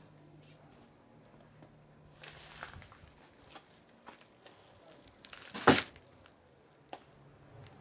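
Handling noises from working on materials: scattered light clicks and a short rustle, then one sharp knock a little before six seconds in.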